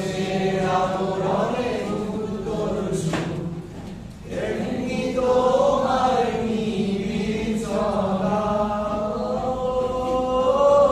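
Voices singing a slow Bengali song, holding long, gently wavering notes, with a short pause for breath about four seconds in before the line resumes more strongly.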